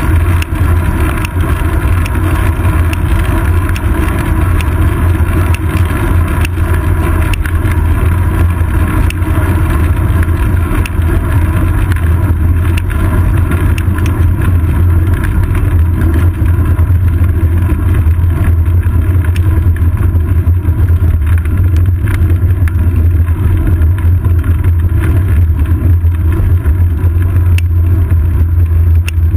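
Wind and road vibration on a seat-post-mounted GoPro Hero 2 on a moving bicycle: a loud, steady low rumble with faint scattered clicks from road bumps.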